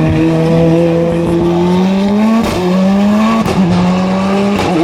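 Touring race car engine accelerating hard, its pitch climbing and then dropping sharply at each of three quick upshifts.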